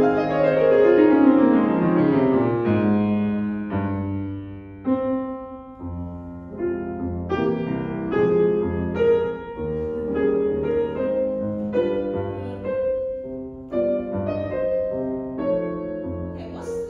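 C. Bechstein grand piano played solo: it opens with a fast descending run, then slower melody notes over sustained chords in the bass.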